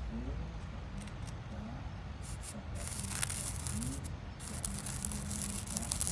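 Back of a plastic spoon rubbing coloured sand onto the sticky paper of a sand-art card, a gritty hissing rub in two stretches, from about three seconds in and again from about four and a half seconds until the end.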